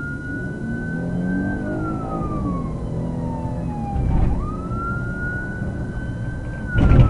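Police car siren on a wail setting: a slow rise then a long falling sweep, about every five seconds, over the patrol SUV's engine pulling hard and road noise. Two heavy thumps, about four seconds in and at the very end.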